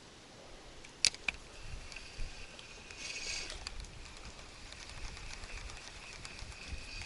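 Faint outdoor ambience: two sharp clicks about a second in, then a thin, steady high-pitched tone that holds on.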